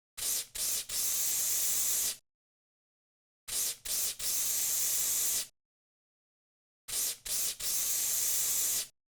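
Aerosol cockroach insecticide can with a narrow straw nozzle spraying a hiss in three bursts, a few seconds apart. Each burst is two short puffs and then a steady spray of about a second.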